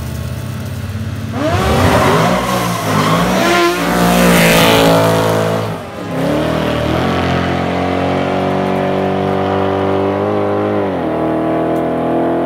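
Street race cars launching hard from a standing start, engines revving high and shifting up through the gears as they pull away. In the second half, an engine holds a loud, slowly rising note, with one more upshift near the end.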